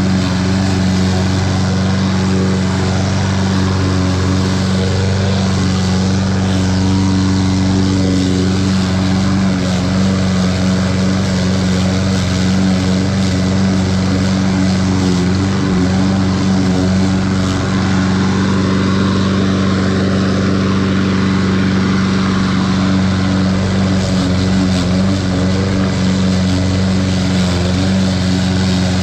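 Toro 21-inch walk-behind lawn mower running steadily at full throttle while mowing, its engine giving an even, unbroken hum.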